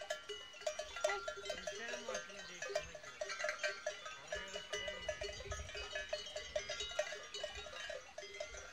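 Many bells on a passing flock of sheep and goats clanking irregularly and overlapping, with a couple of low bleats about two and four and a half seconds in.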